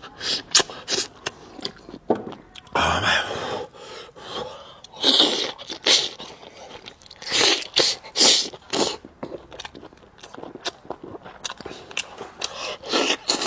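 Close-miked eating: biting and chewing meat off the bone, with many sharp wet clicks and short smacking bursts at an irregular pace.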